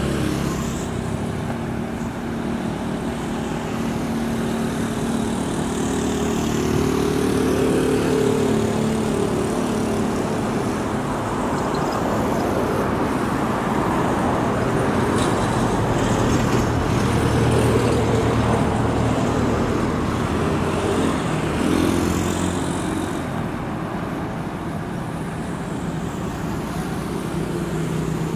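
Diesel engines of a Changlin PY190H motor grader and a road roller running as they work the road base, the engine note rising and falling, mixed with the hiss of passing road traffic.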